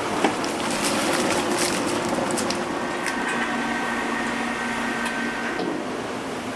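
Steady workshop noise with scattered sharp clicks and ticks in the first few seconds, and a couple of faint steady machine tones that start about three seconds in and stop near the end.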